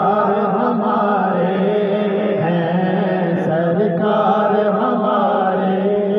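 A man chanting a devotional naat-style recitation into a microphone, in long melodic held lines that rise and fall, heard through a loudspeaker.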